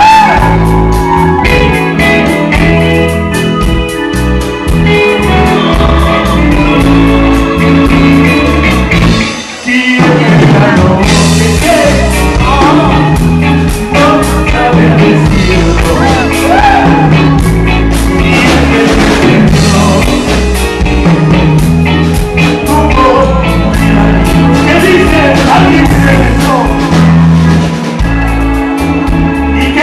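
Live rock band playing: drums, bass, electric guitar and organ under a male lead vocal. The band breaks off briefly about nine seconds in, then comes back in full.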